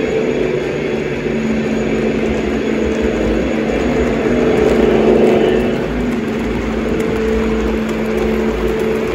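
Sound-fitted 0 gauge model Deltic diesel locomotive running past with its engine drone playing, over the rumble of model wheels on the track. It swells to its loudest about five seconds in as the locomotive passes closest.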